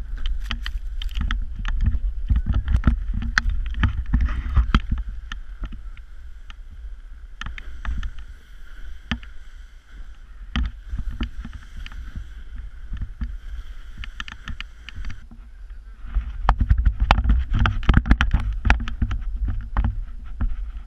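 Snowboard riding through deep powder, heard through a GoPro on a handheld pole: a heavy low rumble with many sharp knocks, quieter for a stretch in the middle and heavier again near the end.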